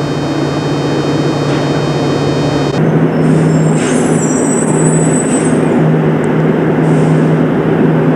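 Steady hum and rumble of a light rail car standing at an underground station platform, with a brief high-pitched squeal about four to five seconds in.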